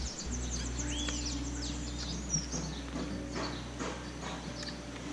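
Small birds chirping, a scatter of short rising and falling calls, over a steady low hum.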